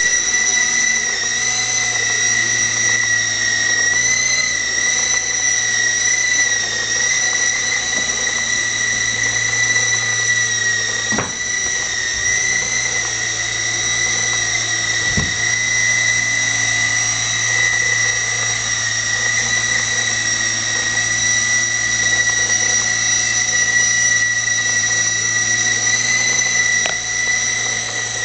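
Blade CX3 coaxial micro RC helicopter in flight: its electric motors give a steady high whine over the low hum of the twin rotors. Two short knocks come near the middle.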